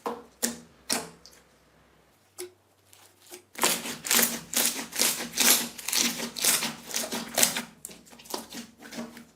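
Slime being pressed and squished by hand, giving sharp clicks and crackling pops: two clicks in the first second, a short pause, then a fast run of crackles from about three and a half seconds in.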